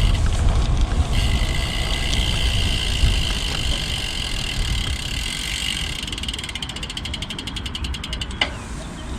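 Road bike's rear freewheel hub buzzing as the rider coasts, turning into separate rapid ticks near the end, over a steady rumble of tyres and wind on the microphone.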